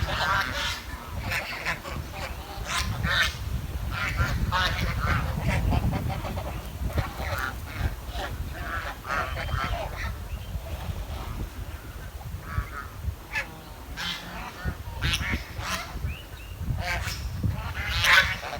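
Swan chirping: a long run of short, pitched calls following one another every second or so, with a steady low rumble underneath.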